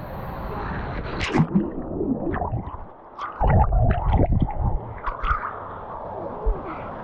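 Water sloshing and gurgling close against the microphone, with a loud stretch of splashing about three and a half seconds in.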